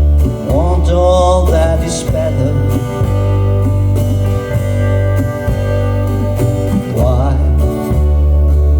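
Background music: a country-style song with guitar and a steady bass line, in an instrumental passage between verses.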